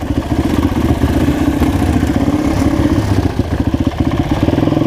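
Enduro motorcycle engine heard from the rider's onboard camera, running steadily with a rapid pulsing firing beat as the bike rides along a dirt trail.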